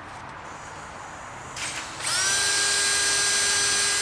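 Electric drill boring a small hole through a plastic car bumper: the motor spins up about halfway through, holds a steady whine for about two seconds, then stops.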